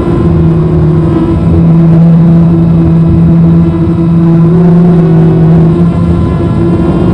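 FPV250 racing quadcopter's brushless CF2812 motors and 6045 plastic propellers whining steadily in flight, heard loud and close through the onboard camera, with small shifts in pitch as it turns.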